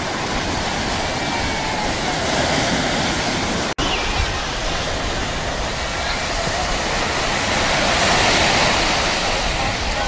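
Surf breaking and washing up a sandy beach: a steady rush of waves, with a brief gap about four seconds in where the recording cuts.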